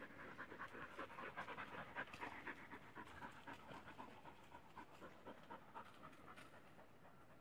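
A hunting dog panting in quick, even breaths, faint, the panting fading toward the end.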